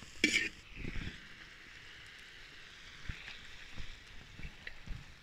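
A metal slotted spoon scrapes and clicks against a metal cooking pot a few times at the start, then a faint sizzle fades. A few soft low knocks follow as the pot is lifted off the wood fire and handled.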